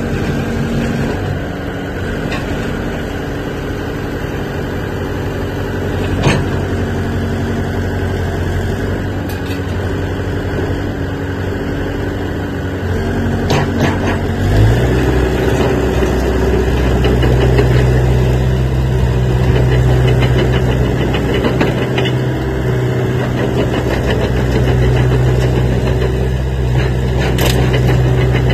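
Hitachi ZAXIS 70 excavator's diesel engine running steadily, then stepping up to a higher, louder engine speed about halfway through and holding there.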